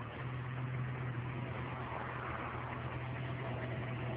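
Probst VM-203 paving machine's engine running steadily, a constant low hum.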